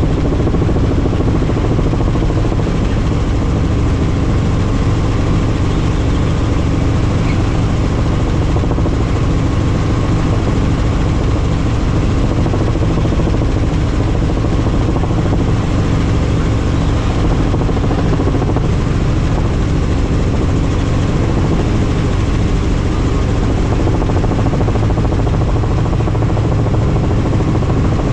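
Helicopter in flight: a loud, steady drone of rotor and engine with a deep, even hum underneath and no change in pitch.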